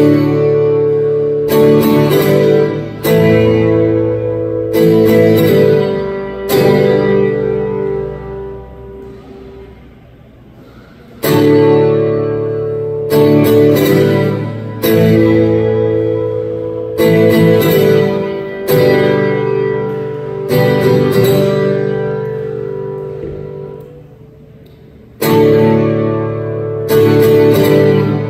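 Solo acoustic guitar strummed, chords struck in quick groups and left to ring. Twice, about seven and twenty seconds in, a chord is let ring and fade for a few seconds before the strumming picks up again.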